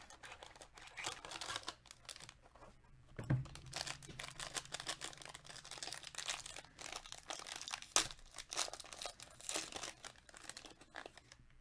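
Plastic and foil trading-card pack wrapping crinkling and tearing as it is opened by hand, with a knock about three seconds in and a sharp click near eight seconds.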